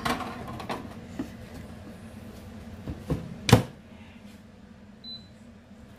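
Air fryer being loaded and shut: a few knocks and clatters of the basket and drawer, the loudest a thud about three and a half seconds in, then a single short beep about five seconds in.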